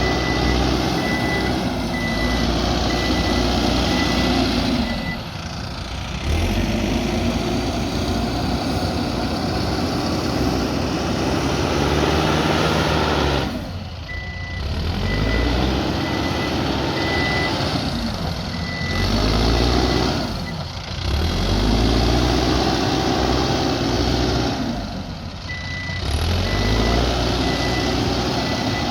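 Mahindra backhoe loader's diesel engine working under load, easing off briefly several times, with its reversing alarm beeping in stretches.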